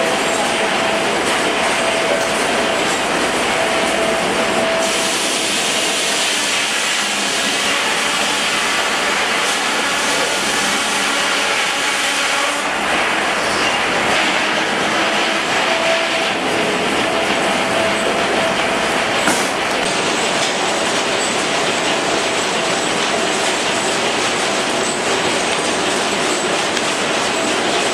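Rumely 36-120 twin-cylinder steam traction engine running under load as it belt-drives a sawmill, mixed with the mill's machinery. A steady high whine runs through it, fades out for several seconds in the middle and then returns.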